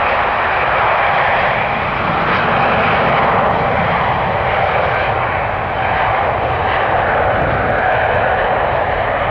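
Airbus A350-900's two Rolls-Royce Trent XWB turbofans running loud and steady as the airliner rolls along the runway: a broad jet rumble with a faint steady whine on top.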